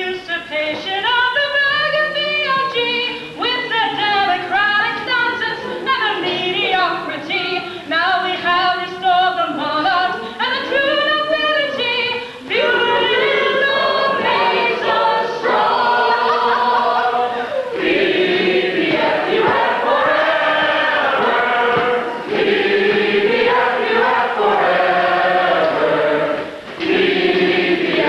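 A group of voices singing a song together without accompaniment, in sung phrases broken by short pauses.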